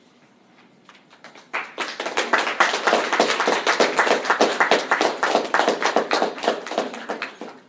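Small audience applauding: a few scattered claps about a second in, quickly building to full applause, then dying away near the end.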